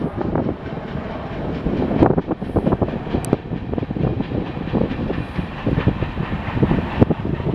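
Union Pacific freight train rolling past, its wheels clattering over the rail joints in a steady rumble with irregular clacks and knocks, the sharpest about two seconds in and near the end.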